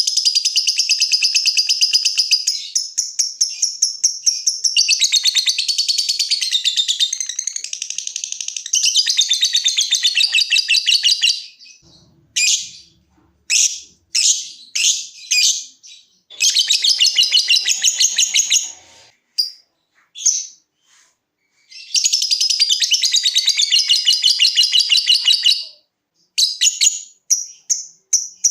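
Lovebird ngekek: long, very rapid chattering trills lasting several seconds each, with short separate chirps between the trills.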